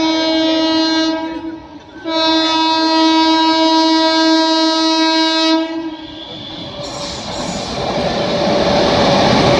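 ALCo diesel locomotive's air horn blowing two long single-note blasts, the first cutting off about a second in and the second running from about two seconds in to nearly six. After it, the rumble and track noise of the approaching train rise steadily.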